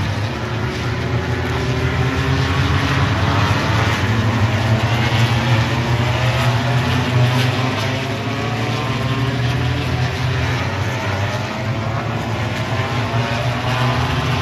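MotoGP racing motorcycles going past at speed, several high-revving four-stroke engines at once, their pitches gliding up and down as they accelerate and pass.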